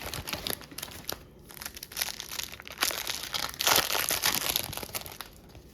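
A trading-card pack's wrapper crinkling as it is handled and torn open. The crackling is loudest a little past halfway.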